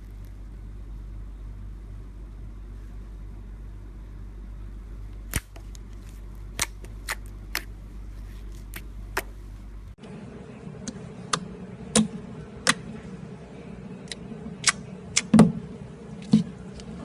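Slime being handled, making scattered sharp popping clicks that start about five seconds in and come more often in the second half, over a low steady hum.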